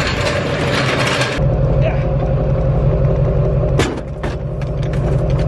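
A pickup truck's engine running with a steady low rumble, with one sharp knock a little before four seconds in. It is preceded by about a second and a half of hissing noise.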